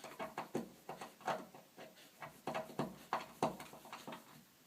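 Screws being driven by hand through a sliding door bolt into a wooden door: a quick, irregular run of short clicks and creaks from the screwdriver turning.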